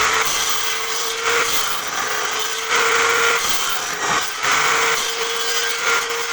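Homemade bench-mounted table saw running steadily, its blade biting into wood in about five short cutting surges a second or so apart.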